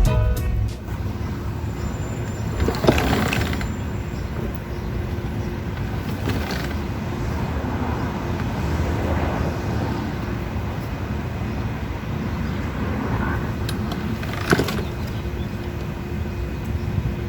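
Steady outdoor background rumble like road traffic, with a few sharp knocks and handling noises as the lawn mower is unboxed.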